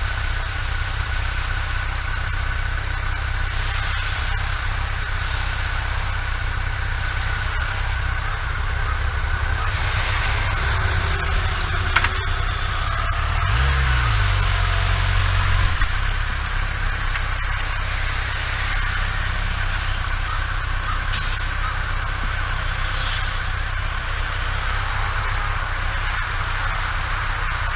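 Motorcycle engine running under a steady hiss of wind and road noise. The engine pitch rises briefly about 13 seconds in, and there is a short click just before it.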